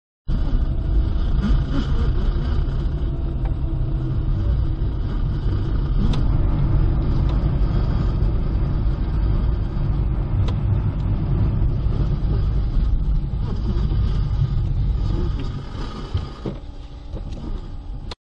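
Steady low rumble of car engine and tyre noise inside the cabin, recorded by a dashcam, with a couple of faint clicks; it grows quieter near the end.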